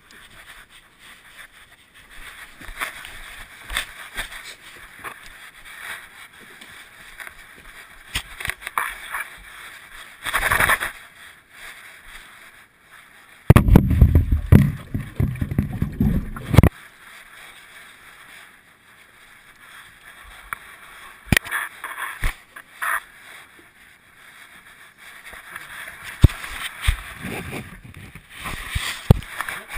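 Handling noise from a camera worn on a German shepherd's collar: rustling, scraping and scattered clicks as the dog moves. Around the middle comes a loud stretch of about three seconds of rubbing and knocking against the camera.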